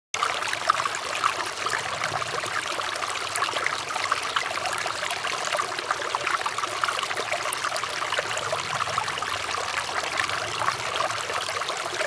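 Water in a shallow stream flowing and babbling steadily, with a fine crackle of small splashes.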